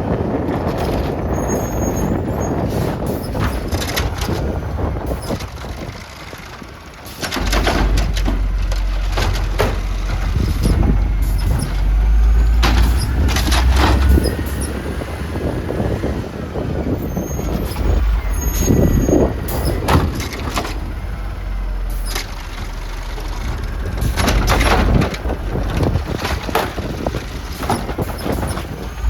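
Garbage truck working, its engine running with several short air-brake hisses, and wind rumbling on the microphone from about seven seconds in.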